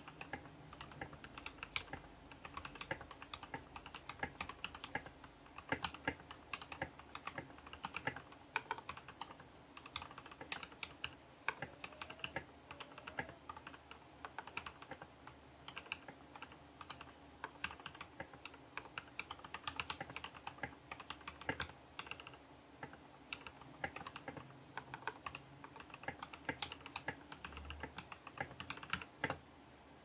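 Fast typing on a TKL mechanical keyboard built with hand-lubed JWICK Red linear switches: a dense, irregular stream of key clacks.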